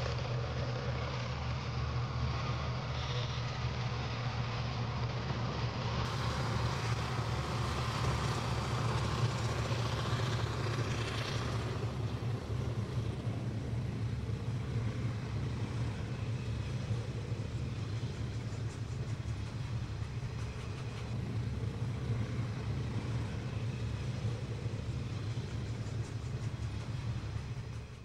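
A freight train of covered hopper cars rolling past: a steady low rumble of steel wheels on rail with a continuous noisy wash above it.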